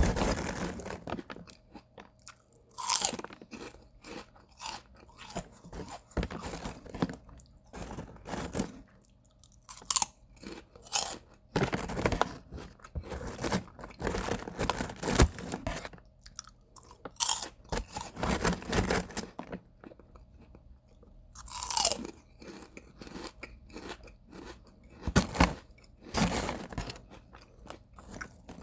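Close-up sound of a person eating potato chips: sharp crispy crunches as the chips are bitten, followed by runs of chewing, repeated with short pauses between mouthfuls.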